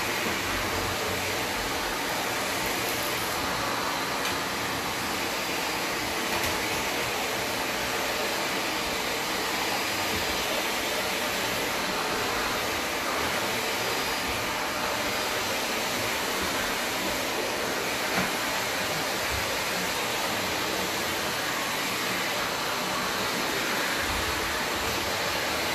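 Vacuum cleaner with a hose and wand running steadily, the wand being worked over a hardwood floor, with one brief knock about two-thirds of the way through.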